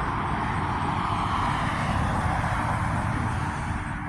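An airplane flying over, its steady engine noise easing slightly near the end.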